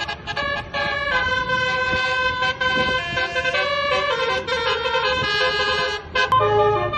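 Multi-tone telolet horn playing a melody: a run of held notes stepping up and down in pitch, broken by a few brief pauses.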